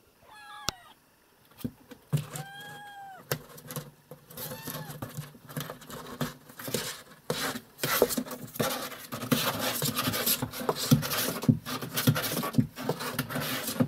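A cat meowing three times in the first five seconds, each call rising and then falling. From about six seconds in comes a long stretch of rustling and scratching with many sharp clicks, louder from about eight seconds.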